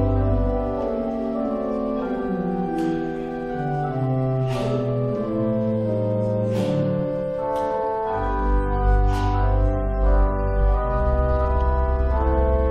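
Organ music: slow, sustained chords over deep held bass notes, with a few bright struck accents ringing above them.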